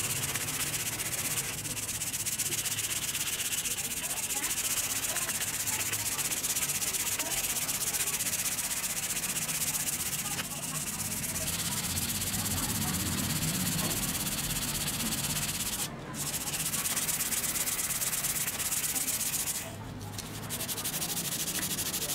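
Sandpaper rubbed back and forth by hand over a steel axe blade, polishing the rusty surface: a steady scratchy hiss with two brief pauses, one about three-quarters of the way through and one near the end.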